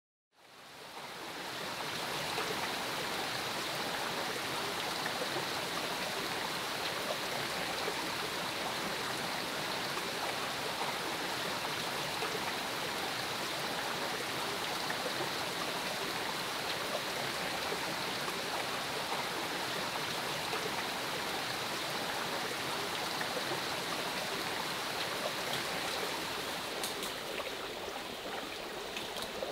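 Forest stream running over rocks, a steady rush of water that fades in over the first couple of seconds.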